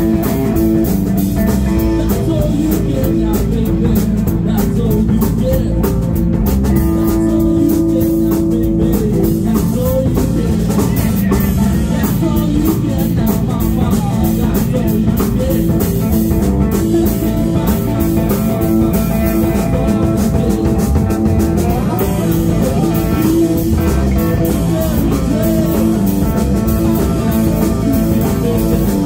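Live blues-rock band playing an instrumental passage: electric guitars over a drum kit. One guitar plays a lead line with bending notes and a long held note about seven seconds in.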